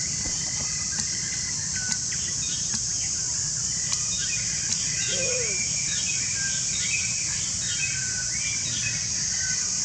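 Forest ambience: many small birds chirping and twittering, thickest in the second half, over a steady high drone. A single short lower call comes about five seconds in.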